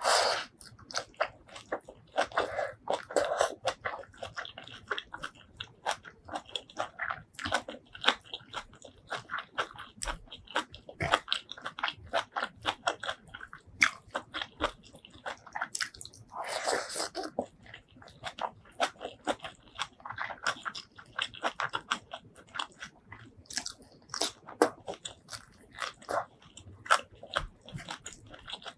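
Close eating sounds of a person chewing and biting mouthfuls of spicy shrimp curry and rice: a dense run of short mouth clicks and smacks, with louder bites at the start and about seventeen seconds in.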